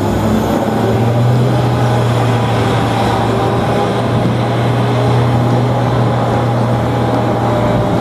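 Airport pushback tug and jet airliner on the apron: a steady low engine hum with a broad rushing noise over it, unchanging throughout.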